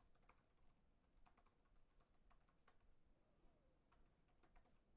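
Faint, irregular keystrokes on a computer keyboard while a username and password are typed in.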